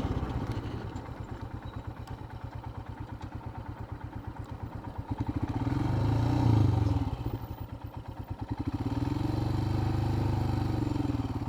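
Royal Enfield Himalayan's single-cylinder engine thudding at low revs on the move, picking up twice with a rise and fall in pitch, about five and nine seconds in.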